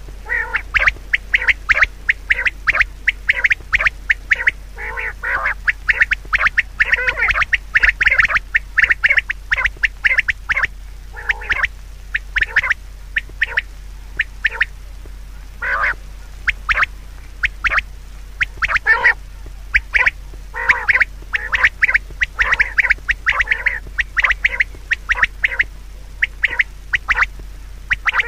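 Birds calling in quick runs of short, repeated calls, with brief lulls now and then.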